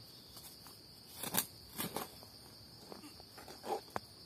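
A small hand hoe scraping and crunching into dry forest soil and leaf litter, a few strokes: two about a second in and two more near the end. Insects keep up a steady high drone underneath.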